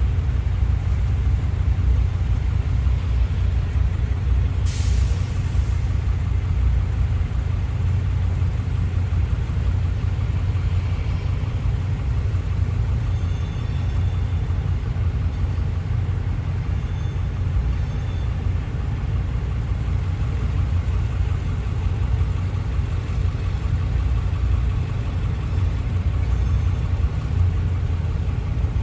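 Freight train of boxcars rolling across a grade crossing, a steady low rumble heard muffled from inside a car. A brief hiss comes about five seconds in.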